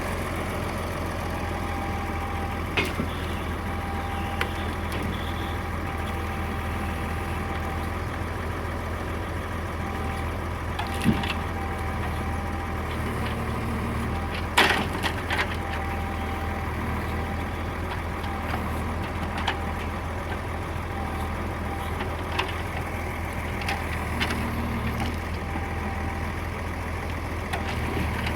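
Engine of a forestry log-loading crane running steadily with a low hum and a thin steady whine, with several sharp knocks and clunks as the wood is handled, the loudest about halfway through.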